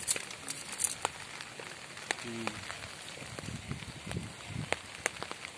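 Cast net being dragged and gathered on grass: scattered light clicks and ticks from its weighted edge, with rustling of the wet mesh.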